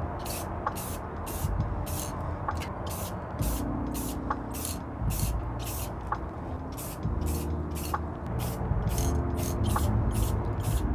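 Aerosol can of clear coat sprayed in short hissing bursts, about two to three a second, putting coats of clear lacquer on fingerboard decks.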